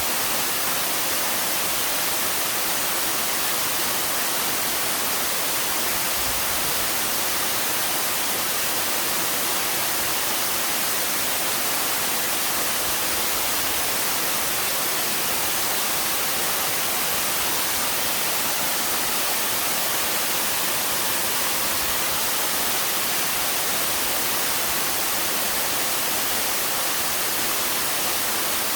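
Waterfall in a mountain valley: a steady, unbroken rush of falling water, hissy and bright, with no change in level.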